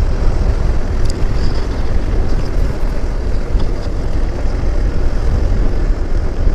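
Hero XPulse motorcycle running at road speed, its engine under heavy, steady wind rumble on the rider's microphone.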